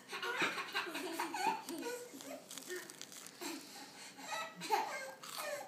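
Laughter in repeated short bursts, a small child's giggling among it.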